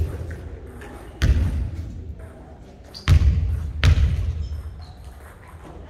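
A basketball thudding three times on a wooden gym court, each hit echoing in the big hall, the last two less than a second apart.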